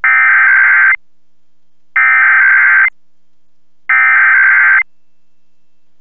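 Emergency Alert System SAME header: three bursts of digital data tones, each about a second long and about a second apart. They announce a required monthly test that is about to be read out.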